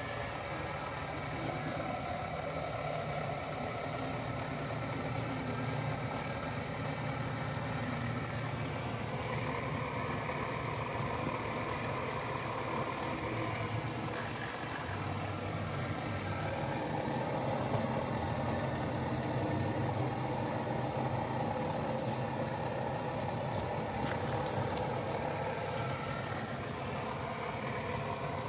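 Radio-controlled scale Cat 336D excavator working: a steady mechanical motor hum that shifts in pitch and strength as the machine digs and swings.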